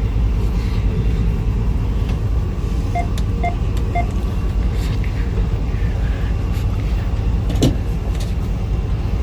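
Steady low rumble of a vehicle running, heard from inside the cab. Three short, evenly spaced beeps about three seconds in, and a single sharp click about two-thirds of the way through.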